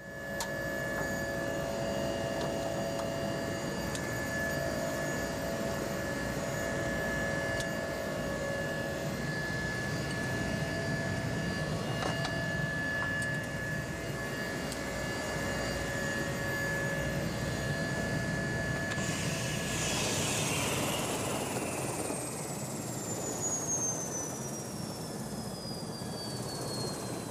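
Rescue helicopter's turbine engine and rotor running steadily, heard from inside the cabin. About two-thirds of the way through, a high turbine whine starts falling steadily in pitch as the engine winds down.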